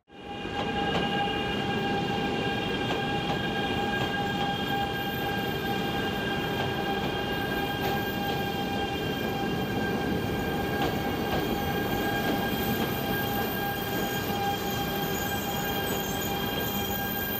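E926 East-i Shinkansen inspection train moving past at low speed: steady running noise with a constant-pitch electric whine from its traction equipment.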